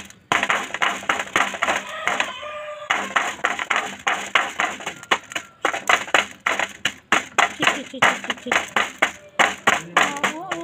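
A gamecock's beak pecking rice grains off a metal pan: sharp rapid taps, several a second, with a brief falling call about two seconds in.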